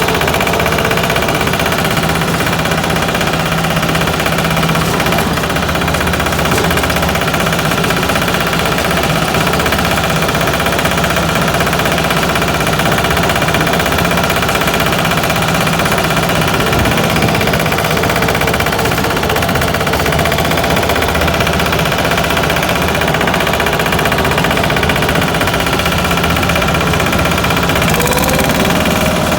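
A Yağmur patpat's engine running steadily at a constant speed. The patpat is a two-wheel walking tractor driven by a single-cylinder diesel engine.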